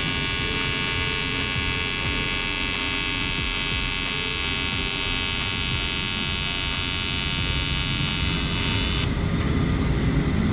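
AC TIG welding arc on aluminum from an AHP AlphaTIG 201XD welder: a steady, high-pitched electric buzz that cuts off abruptly about nine seconds in as the arc is stopped. A low, steady rumble continues underneath throughout.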